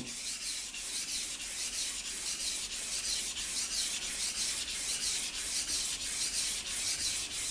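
Steel knife edge stroked back and forth on a wet Japanese water stone, a steady rhythmic scraping of evenly repeated strokes. The blade is being ground on its slurry of wet stone powder to raise a burr along the edge.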